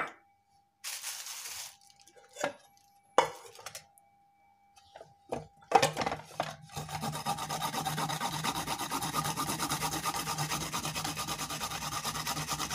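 Peeled fresh spice root being grated on a grater. A few knocks and a short scrape come first, then from about six seconds in a steady, fast rasping of about four to five strokes a second.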